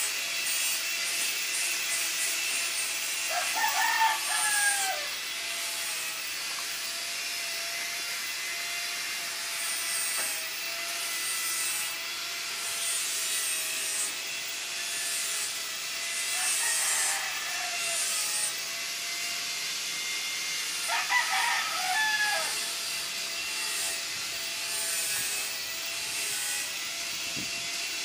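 A rooster crows three times, a few seconds into the sound, about midway and again soon after, over a steady hiss of background noise with a faint steady hum.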